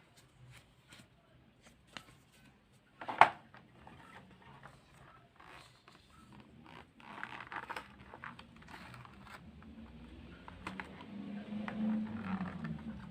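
Handling noises: scattered small clicks and scraping rustles, with one loud, crackling click about three seconds in and denser rustling from about halfway through.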